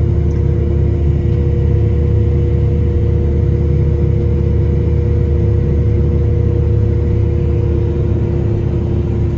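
Heavy vehicle running steadily at road speed, heard from inside the cab: a constant engine and drivetrain rumble with two steady whining tones over it.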